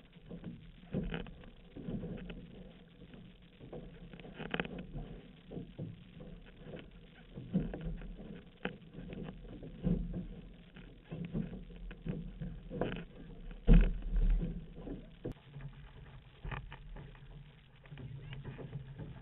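Water rushing and splashing along the hull of an outrigger canoe under way, with paddle strokes dipping in about every second or so. One heavy low thump comes a little past two-thirds of the way through.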